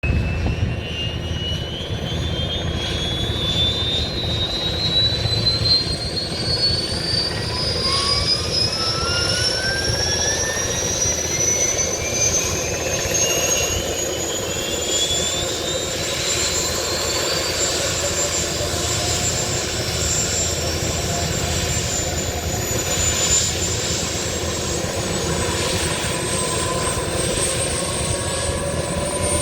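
Bell 205 helicopter's Lycoming T53 turboshaft engine running, its turbine whine climbing steadily in pitch for about fifteen seconds and then holding, over a steady low rumble.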